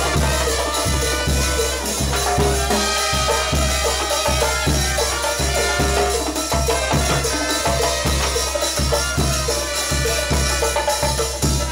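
A dance band playing loud Latin dance music, with a steady thumping bass beat and percussion, heard in a crowded hall.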